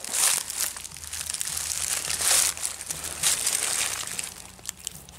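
Footsteps crunching and rustling through dry fallen leaves, a series of irregular crunches.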